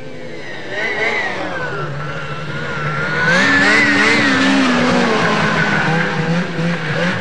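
Fan-cooled two-stroke Ski-Doo racing snowmobile at full throttle, its engine note rising and falling as it approaches, getting louder as it passes close about three seconds in.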